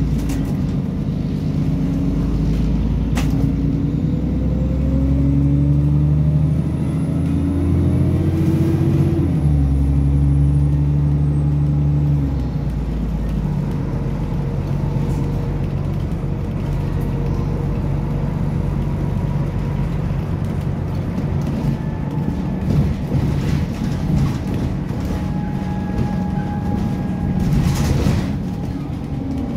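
Bus's diesel engine heard from inside the cabin, pulling under acceleration with its note climbing and stepping through automatic gear changes, then dropping away about twelve seconds in as the bus coasts. After that comes steady road and tyre rumble with interior rattles and knocks, and a brief loud hiss or clatter near the end.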